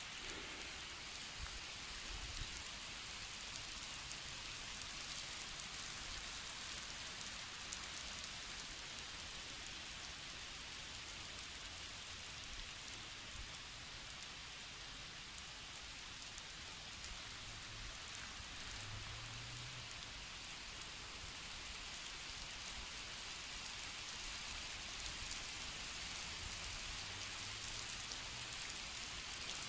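Steady rain falling on wet asphalt and roadside grass and trees, an even hiss.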